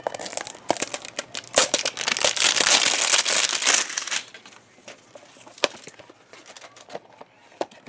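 Plastic wrapper crinkling and tearing as it is pulled off a small blind box. The crinkling is loudest for the first four seconds, then dies down to a few scattered crackles.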